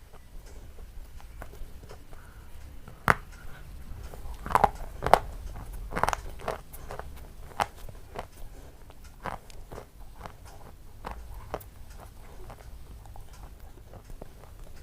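A person biting and chewing crunchy food close to the microphone: irregular crisp crunches and smaller crackles, with the loudest bites in a cluster between about three and six seconds in.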